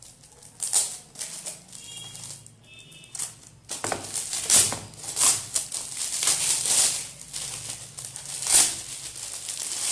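Shiny red gift-wrapping paper crinkling and tearing as it is pulled off a present by hand. It is sparse at first, then a dense run of crackling from about four seconds in.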